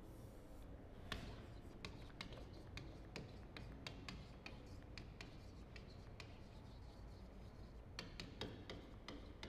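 Chalk writing on a chalkboard: faint, irregular taps and short scratches as the letters are written.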